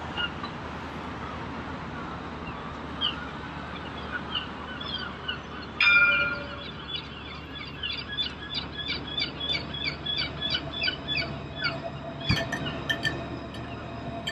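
City street hum with a pedestrian crossing signal chirping: slow, spaced chirps at first, then a fast, even run of chirps from about eight seconds in, the signal that the crossing is open. A short loud tone sounds about six seconds in.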